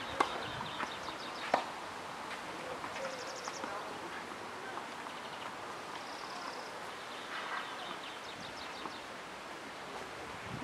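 A tennis racket strikes the ball on a serve, a sharp crack just after the start, followed by a second sharp knock about a second and a half later. Then there is only quiet outdoor background with faint chirps.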